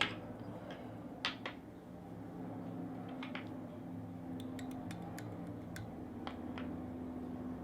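Fine fly-tying scissors snipping off excess tinsel: one sharp snip at the start and a couple more about a second and a half in, then scattered light clicks of tools being handled. A steady low hum runs underneath.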